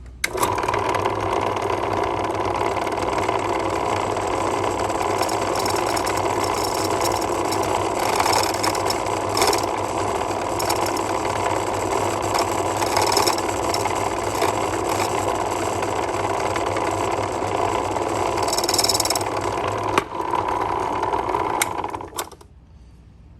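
Motorised key-cutting machine running steadily, its cutter taking the steps of a lever key's bit deeper, with brief higher-pitched scrapes where the cutter bites the blank. It starts at once and cuts off suddenly near the end.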